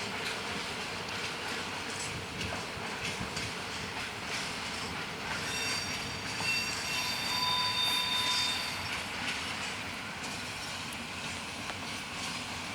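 Freight train cars rolling past with a steady rumble and wheels clicking over the rail joints. About halfway through, the wheels squeal for a few seconds with several high, steady tones.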